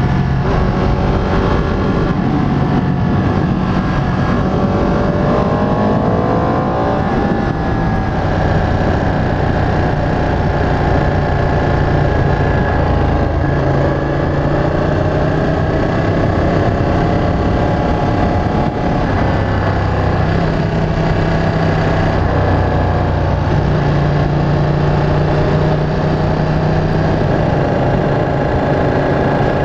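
Ducati 959 Panigale's Superquadro L-twin engine under way on the road. The engine note climbs about four to seven seconds in, drops back, then holds fairly steady.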